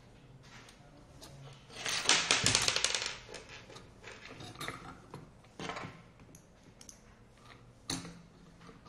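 Clatter of a scooter wheel and metal tools being handled on a table: a loud rattling scrape about two seconds in lasting about a second, then a few scattered clicks and metal taps.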